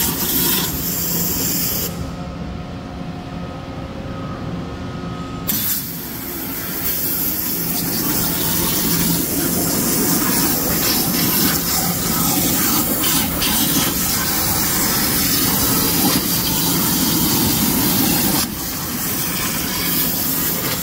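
Flow Mach 100 waterjet's high-pressure jet cutting sheet material, a loud steady hiss. The hiss drops out about two seconds in and comes back about five seconds later, then eases slightly near the end.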